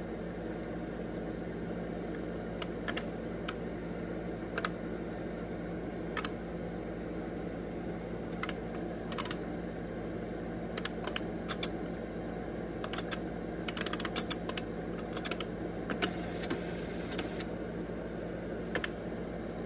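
Keys of an IBM 5110 computer keyboard being typed in scattered clicks and short runs, over the machine's steady running hum.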